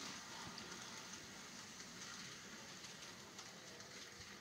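Faint, even crackling hiss with scattered light clicks: model railroad freight cars rolling along the layout's track.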